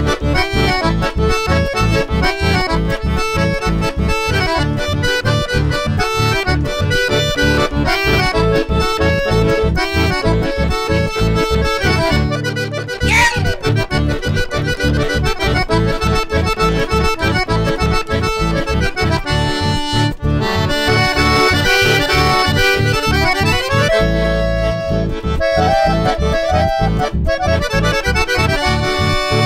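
Red Lusardi piano accordion playing a tune over a steady bass beat.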